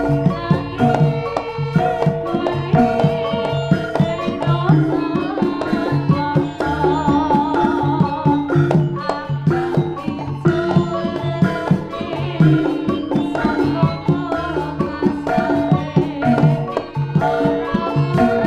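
Javanese jaranan gamelan ensemble playing: kendang hand drums beat a fast, busy rhythm under ringing metallophone notes and a wavering, reedy high melody.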